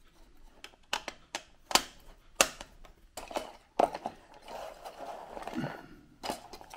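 A string of sharp clicks and light taps as a screwdriver is laid on a tabletop and a small circuit board is lifted out of a plastic alarm clock case, with a stretch of softer rustling handling noise in the middle.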